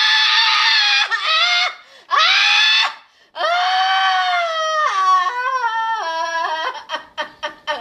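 A person screaming in long, high-pitched shrieks: one held for over a second, a shorter one, then a long wavering scream that drops in steps, followed by a few sharp clicks near the end.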